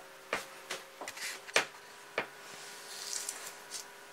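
Handling of a folding knife and a guided knife-sharpening rig on a workbench: several sharp clicks and knocks over the first two seconds or so, the loudest about one and a half seconds in, then a brief soft rubbing rustle.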